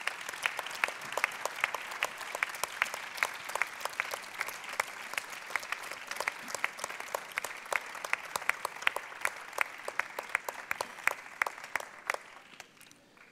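Applause from many people clapping, with single sharp claps standing out from the mass. It thins and dies away near the end.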